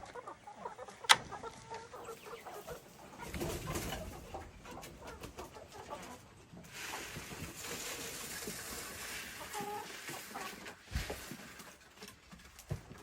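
Chickens clucking as they are fed, with a sharp knock about a second in and a stretch of rustling noise in the middle.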